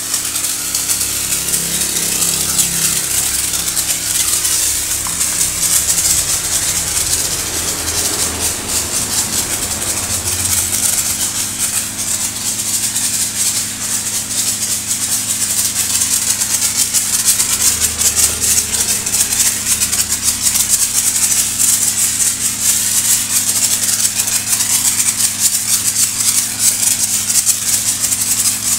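Washing foam sprayed from a hose-fed foam sprayer onto a motorbike: a continuous hissing, crackly spray with foam spattering on the bodywork, over a steady low hum.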